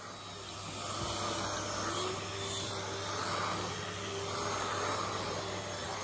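Corded Dyson vacuum cleaner running on carpet, a steady motor whine that wavers slightly in pitch and loudness as the cleaner head is pushed back and forth.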